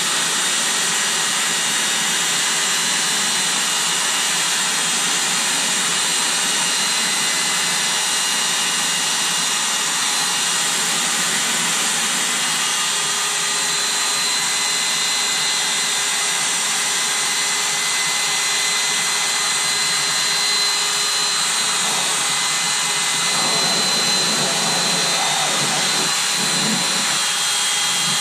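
Electric air pump running steadily, blowing air into an inflatable swim ring.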